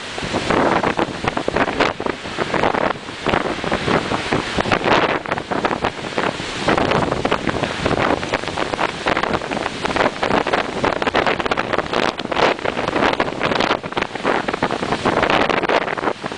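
Strong wind buffeting the microphone in gusts over the rush of rough sea and the churning wash of a pilot boat running at speed alongside the ship's hull.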